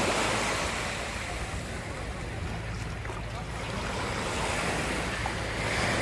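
Small waves washing up onto a sandy beach, swelling at the start and again near the end, with wind rumbling on the microphone.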